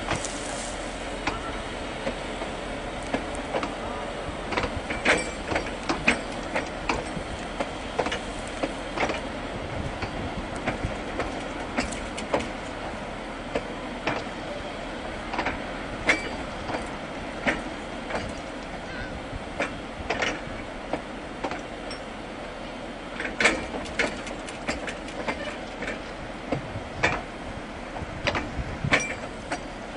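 Tram train running along a narrow-gauge track, heard from on board: a steady running noise with frequent irregular clicks and knocks from the wheels and cars.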